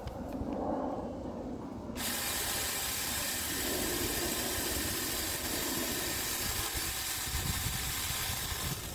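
Saker 4-inch 20V cordless mini chainsaw starting about two seconds in and running with a steady, hissing whine as it cuts through a tree branch, stopping sharply at the end.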